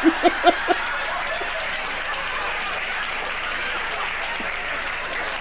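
Studio audience laughing hard and without a break, a dense wash of crowd laughter. It opens with one person's quick run of four 'ha' laughs.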